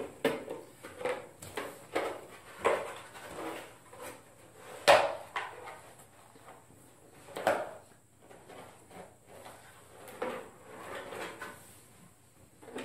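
Plastic stormtrooper leg armor piece handled and pulled onto a leg: scattered knocks, rubs and rustles, the loudest about five seconds in and again about seven and a half seconds in.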